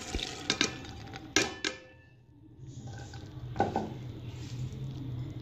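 Soaked chana dal (split chickpeas) poured from a bowl into a steel pot, with a few clinks and knocks of bowl on pot in the first two seconds. After that a faint low hum runs on, with one more knock.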